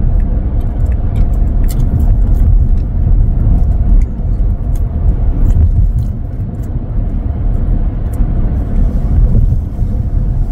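Steady low road and tyre rumble inside the cabin of a moving Tesla Model X, an all-electric SUV, with faint clicks now and then.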